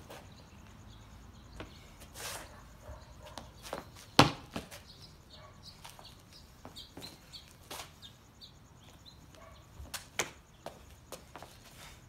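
Scattered sharp slaps, stamps and sneaker scuffs of a kung fu form practised barefaced on concrete, the loudest about four seconds in and another about ten seconds in.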